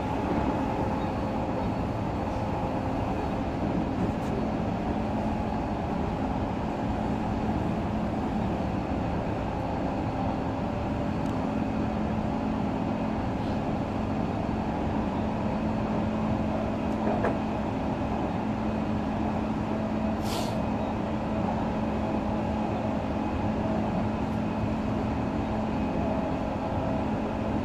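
Odakyu 3000 series electric train with fully enclosed traction motors, heard from inside the car while running at steady speed: an even rumble of wheels on rails with a steady hum. A short hiss comes about 20 seconds in.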